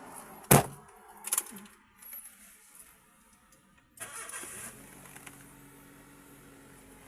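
A loud sharp knock, then a Honda Dimension's engine cranks and starts about four seconds in and settles into a steady idle.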